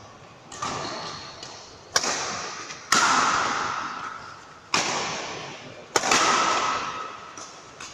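Badminton rackets striking a shuttlecock in a doubles rally: about five sharp cracks at uneven intervals of one to two seconds, each ringing on in the echo of a large hall.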